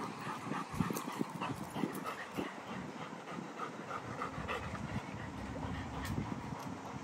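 A dog panting in quick, even breaths, several a second.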